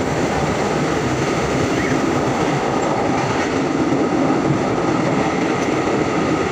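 Steady, loud running noise of a moving passenger train heard from inside the carriage: wheels rumbling and rattling along the rails.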